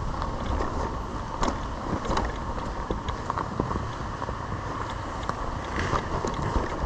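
Dirt bike coasting downhill with the engine off: tyres rolling over rough, rocky dirt, with scattered knocks and rattles from the bike.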